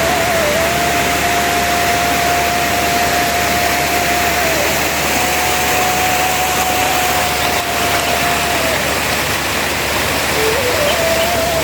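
Steady rushing noise of water or heavy rain, with a thin held tone over it that wavers slightly in pitch and drops out for a moment twice.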